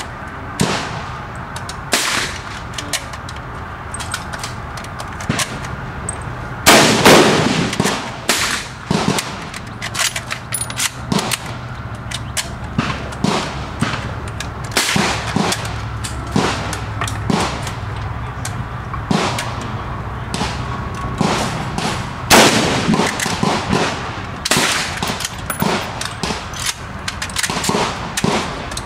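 Gunfire: two loud rifle shots from a 1938 Tula Mosin-Nagant M91/30 in 7.62×54R, about 7 seconds and 22 seconds in, each followed by about a second of ringing echo. Many quieter sharp shots from other guns sound throughout.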